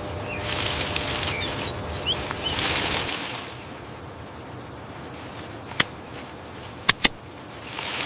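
Outdoor ambience: a rush of noise for the first three seconds with a few faint bird chirps in it, then quieter background and three sharp clicks, two close together near the end.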